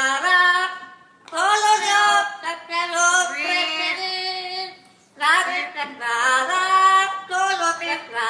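A parrot singing in a high, voice-like warble, sliding and holding notes in phrases, with short pauses about a second in and about five seconds in.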